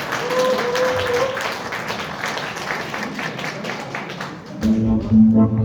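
Audience applauding. Near the end, accompaniment music starts with strong sustained low notes.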